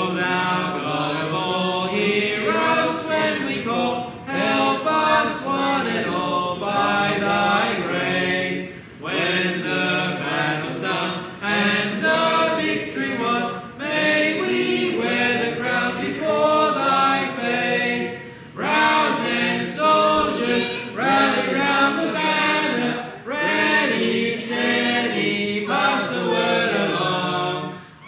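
Congregation singing a hymn verse together in brisk march time, many voices at once, with short breaths between the lines.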